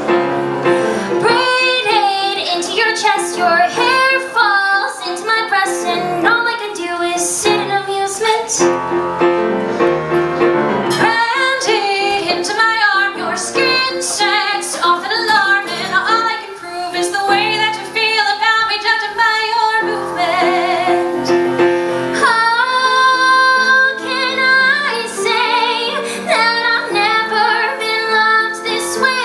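Two women singing a duet to piano accompaniment, with one long held note about three-quarters of the way through.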